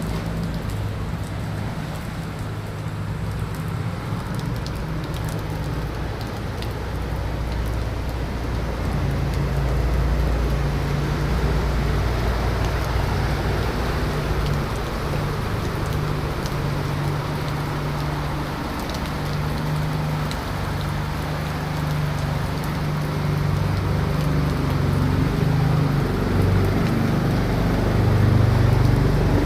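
Heavy rain falling with a vehicle engine running steadily underneath, getting somewhat louder near the end.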